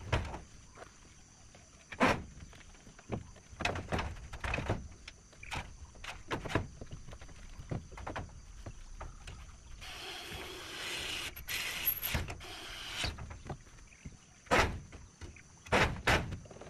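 Timber boards knocking and thudding against a plank floor as wall boards are handled and fitted, in irregular sharp knocks, the loudest near the start and near the end. About ten seconds in, a rasping stretch lasts some three seconds.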